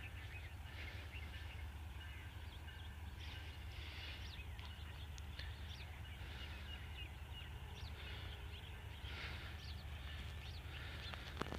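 Small birds chirping, many short quick calls scattered throughout, over a steady low rumble. A single faint click near the end.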